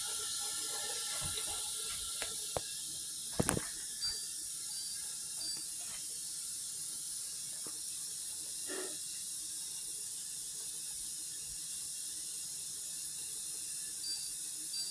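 Dishwasher filling with water after starting a cycle: a steady hiss of incoming water, with a sharp click about three and a half seconds in.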